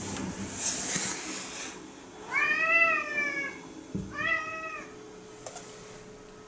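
Domestic cat meowing twice: a long drawn-out meow a couple of seconds in, then a shorter one, each rising and then falling in pitch. A soft rustle comes before them, and a light knock just before the second meow.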